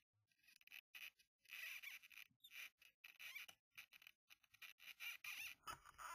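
Footsteps scuffing and crunching on dry gravel and pine needles: an irregular series of short scrapes, with a heavier footfall near the end.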